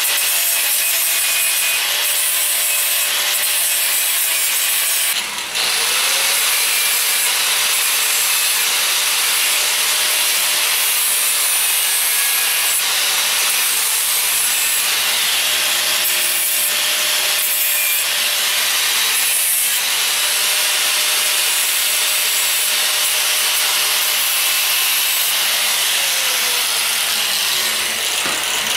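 Angle grinder grinding into a steel socket clamped in a bench vise: a steady, mostly high-pitched grinding noise over a faint motor whine, dipping briefly about five seconds in.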